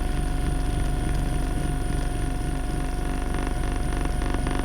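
FitIndex handheld percussion massage gun running steadily, its motor buzzing with a rapid, even pulsing of the striking head.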